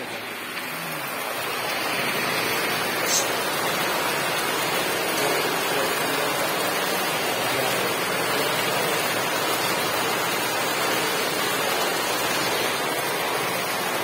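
Water gushing from a water-lift delivery pipe and splashing into a partly filled storage tank, a steady splashing that grows louder over the first two seconds. A brief tick about three seconds in.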